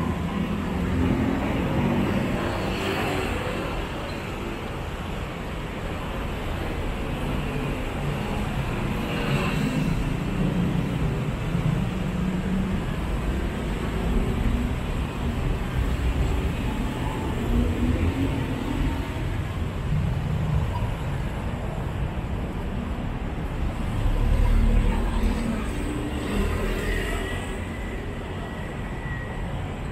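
Steady road traffic on a busy city street, cars and motorcycles running past, with one vehicle going by louder about three-quarters of the way through.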